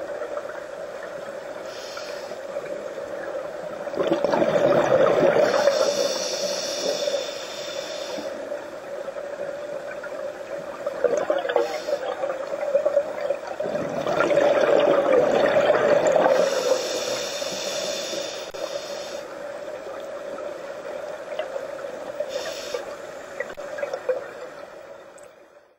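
Scuba diver breathing through a regulator underwater: hissing inhalations alternating with longer bubbling exhalations, over a steady hum. The sound fades out near the end.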